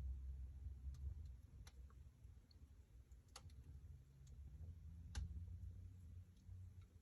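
Wood fire crackling in a fireplace: a few sharp pops and snaps, spaced irregularly, over a faint low rumble.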